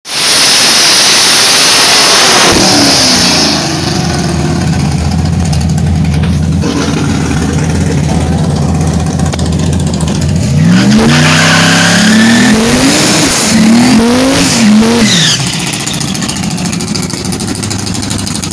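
Drag car's engine running steadily, then revved hard in several rising and falling bursts during a tyre-smoking burnout, before dropping back to a lower run. A loud hiss fills the first three seconds or so.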